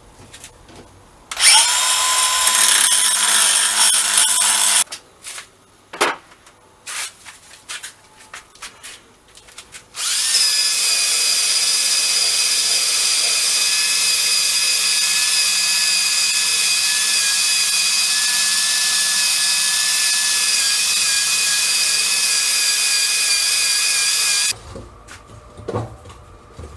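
Handheld electric power tool, drill-type, working on metal: a short run of about three seconds near the start, then a steady run of about fourteen seconds from about ten seconds in, each with a high motor whine over a bright hissing scrape. Between the runs come light knocks and clicks. The tool is cleaning rust off the machine's steelwork.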